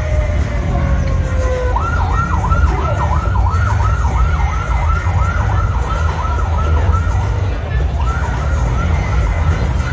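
Emergency vehicle's electronic siren: a slow falling wail winds down in the first couple of seconds, then switches to a fast yelp of about three warbles a second, breaks off briefly and resumes near the end. Steady low rumble of street noise underneath.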